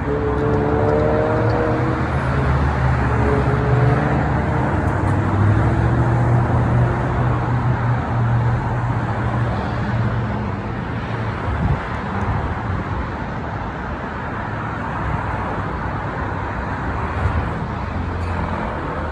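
Road traffic on a multi-lane street: cars driving past with a continuous rumble of engines and tyres. A single vehicle's engine hum stands out over the first several seconds, then fades into the general traffic noise.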